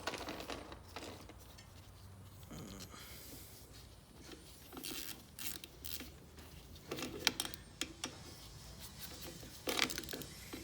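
Scattered light metallic clicks, taps and scrapes of 8 mm bolts and hand tools being handled as bolts are started by hand on a lawn mower engine, with a louder knock or two near the end.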